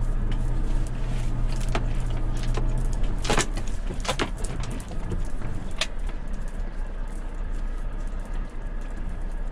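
Volvo truck's diesel engine running steadily, its hum easing off about three seconds in as the truck slows to arrive, with a few short sharp noises in the middle.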